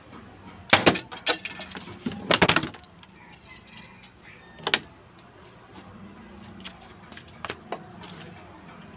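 Sharp knocks and clatter as the plastic bottle target is struck and knocked down against the concrete: a loud cluster about a second in, another around two and a half seconds in, then a single knock near five seconds and two lighter clicks near seven and a half seconds.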